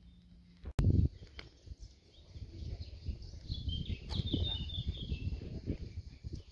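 Small birds chirping with short high calls, over an uneven low rumble. A sudden loud thump comes just before the first second.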